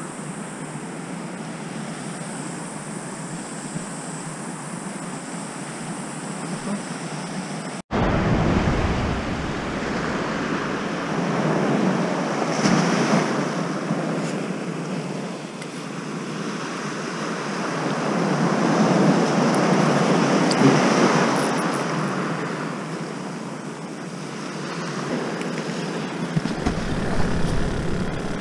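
Steady wash of surf and wind on the shore. About eight seconds in, an abrupt cut brings a louder stretch where the waves swell and break every several seconds.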